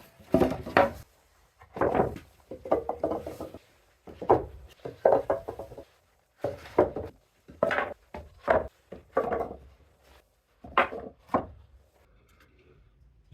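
Pieces of wood being handled: a series of irregular knocks and scrapes of wood on wood, coming in short clusters with pauses between.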